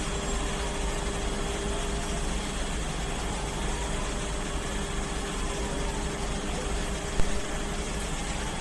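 Fire engine idling with a steady rumble, its engine running to power the raised aerial ladder. A single sharp click about seven seconds in.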